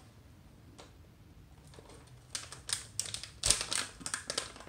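A plastic soft-bait package being pulled open by hand: a quiet start, then quick crinkling and clicking from about halfway in, with one sharp crack of the plastic near the end.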